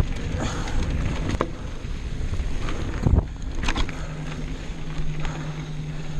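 Mountain bike riding fast down a dirt trail: wind buffeting the microphone over the rumble of the tyres and the bike's rattles and clicks, with one heavy thump about three seconds in. A steady low hum follows as the bike slows to a stop.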